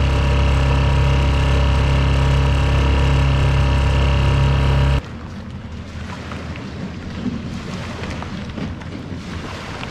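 Boat outboard motor running at a steady speed, loud and even; about halfway it cuts off abruptly to quieter outdoor background noise with a few faint knocks.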